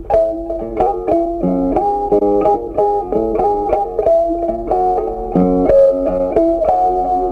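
Background music: plucked guitar playing a steady run of single notes.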